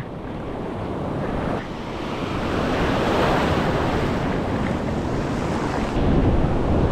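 Ocean surf washing onto the beach, swelling louder over the first few seconds as a wave comes in and then holding steady, with wind buffeting the microphone.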